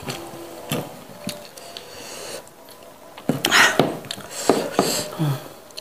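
Close-up eating and food-handling sounds: a metal spoon scraping and clicking through rice and sambal, and meat being pulled from a grilled goat leg by hand, with a louder run of scraping about three and a half seconds in.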